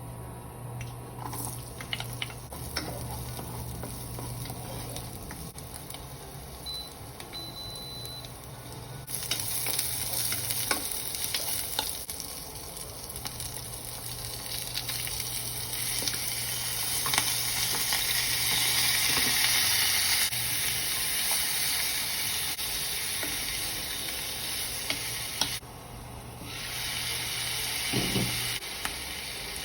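Food sizzling in a frying pan, with occasional clicks of stirring, growing louder about nine seconds in; a steady low hum runs underneath.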